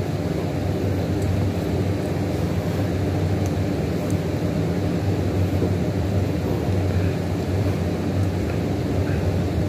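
Steady low rumbling background noise, even and unchanging, with a few faint small clicks.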